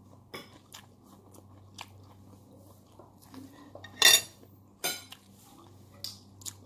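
Eating corn on the cob close to the microphone: soft chewing and mouth sounds, with two louder crunchy bites about four seconds in and just before five. A faint steady low hum runs underneath.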